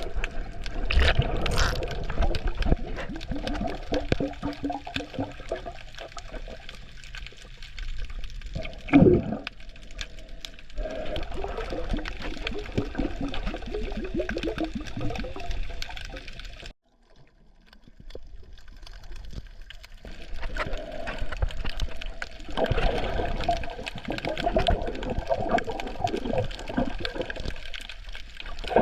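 Water sloshing and moving around a snorkeller in the sea, with scattered clicks and a few louder surges. The sound cuts out suddenly just past halfway, then comes back.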